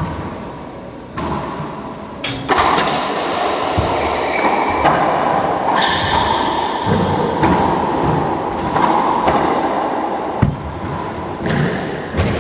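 Racquetball rally in an enclosed court: the ball cracks off racquets and walls about once a second, each hit echoing off the walls, with the sound thickening and growing louder a couple of seconds in.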